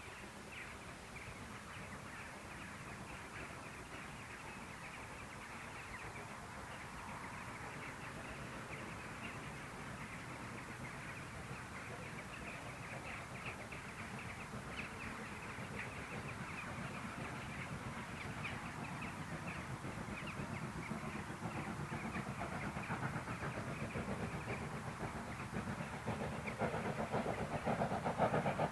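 LSWR S15 No. 506, a two-cylinder 4-6-0 steam locomotive, working hard with a rapid chuffing exhaust beat that grows steadily louder as it approaches.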